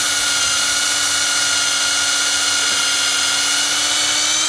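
Cordless drill running at a steady high speed, its bit boring a pilot hole into a maple trunk for a sap tap.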